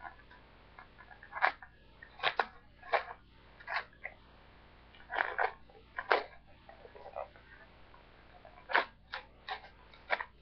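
A priority-mail shipping package being pulled and torn open by hand: about a dozen short, irregular bursts of tearing and crinkling, with brief pauses between them.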